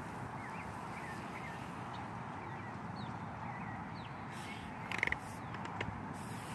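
Birds chirping outdoors: many short chirps over a steady background hiss, with one brief louder call about five seconds in.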